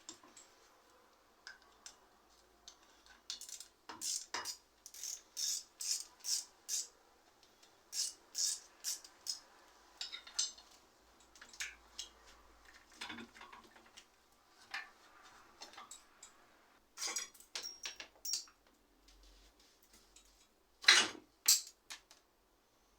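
Short metallic clicks, clinks and taps of tools and small bicycle parts being handled during workshop work on the bike, with one loud clank near the end.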